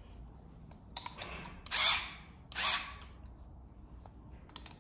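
A few light clicks, then two short rasping bursts about a second apart, as an e-bike's handlebar display mount is worked into place on the handlebar.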